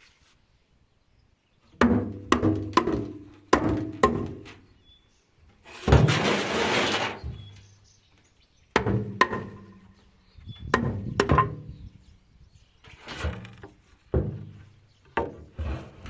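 Heavy wooden knocks and thuds in irregular clusters, each with a short hollow ring, as wooden parts are banged and pulled loose. About six seconds in comes a longer rasping, crashing noise of about a second.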